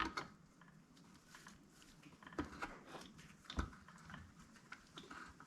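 Faint, scattered clicks and knocks of small metal parts being handled and fitted into a power steering pump as it is reassembled.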